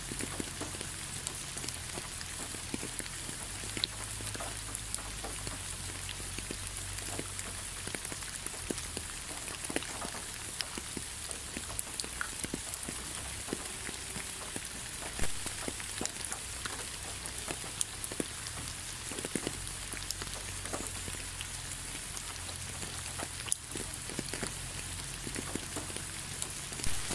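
Steady rain falling: a continuous hiss with many separate drop hits clicking through it. One hit about halfway through stands out louder.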